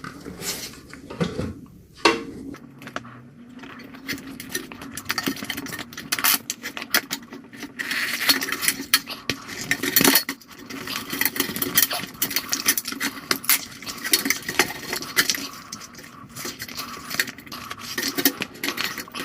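Tire levers prying an 8.5-inch scooter tire off its wheel rim: a continuous run of sharp clicks, clinks and scraping as the levers work against the rim and the rubber.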